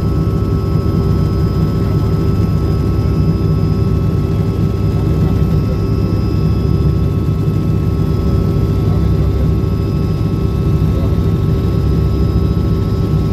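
Helicopter in flight: a steady, unbroken drone of engine and rotor, with a low rumble and a thin high whine held over it.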